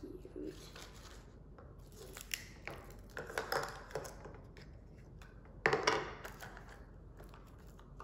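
Plastic wrapper and foil crinkling and tearing in irregular handfuls, with light clicks of hard plastic capsule halves being handled, as a Mini Brands toy capsule is unwrapped. The loudest rustle comes about three quarters of the way through.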